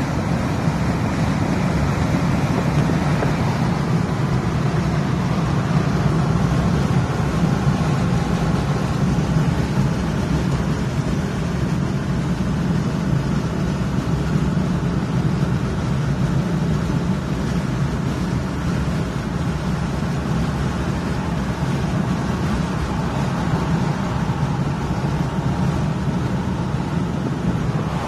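Steady road and engine noise of a pickup truck driving at highway speed, heard from inside the cab.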